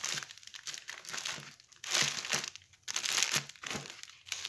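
Plastic wrapping on a pack of paper napkins crinkling in several short bursts as it is handled and pushed into a bag, with the bag rustling.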